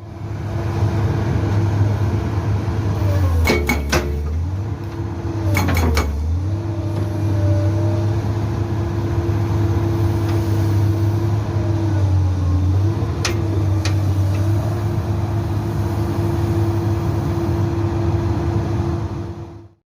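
Komatsu PC200-8 excavator's diesel engine running steadily, its pitch dipping briefly twice in the first six seconds as the hydraulics take load. Three sharp metallic clanks sound through it, two close together early on and one about two-thirds of the way in.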